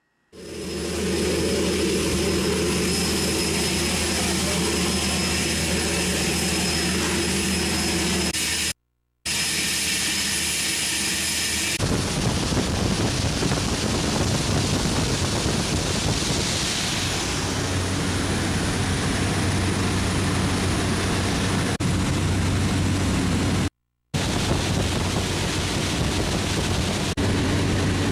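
Propeller aircraft engine running steady and loud, heard from inside a jump plane's cabin. The sound cuts out briefly about nine seconds in and again near the end, and changes character at about twelve seconds.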